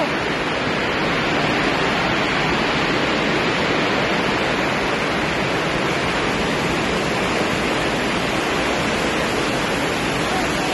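Heavy rain, a steady loud rush that does not let up, heard inside a large hall under its roof during a storm.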